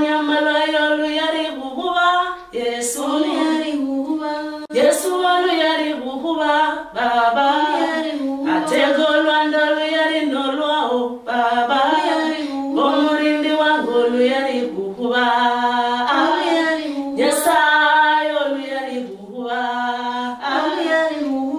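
Unaccompanied female singing of a gospel song, sung in phrases with short breaks between them and no instruments.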